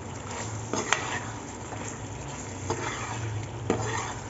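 Chicken karahi sizzling and frying in oil in a pot while a metal slotted spoon stirs it, with a few sharp clinks of the spoon against the pot. This is the bhunai stage: the masala frying once the oil has separated.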